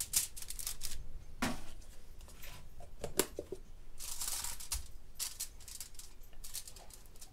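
Aluminium foil crinkling and rustling in irregular bursts, with light clicks and scrapes, as buttered sub buns are handled and set down on a foil-lined baking tray; the longest rustle comes about four seconds in.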